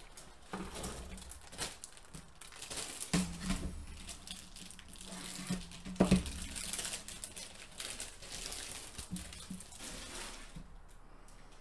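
Clear plastic bag crinkling and rustling as a plastic model-kit sprue is handled and slid out of it, with irregular clicks and light knocks of the plastic sprue. The loudest knock comes about six seconds in.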